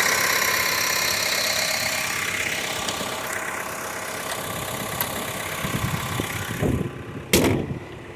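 Chevy Cruze's 1.6-litre turbodiesel four-cylinder idling, then the hood is lowered with a few low thumps and slammed shut with one loud bang near the end, after which the engine sounds more muffled.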